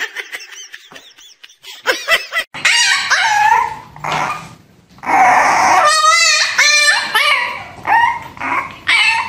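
A puppy whining and yipping in short, loud cries that rise and fall in pitch, with one quavering whine about six seconds in. Softer dog vocal sounds come before it, in the first two seconds or so.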